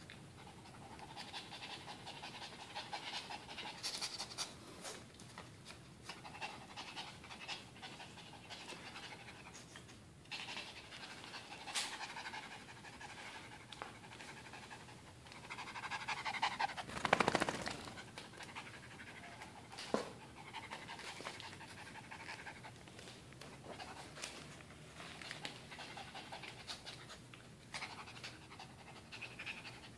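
Small shih tzu-type dog panting hard in quick, rhythmic breaths from the exertion of humping a towel, loudest a little past halfway. A few sharp clicks are heard along the way.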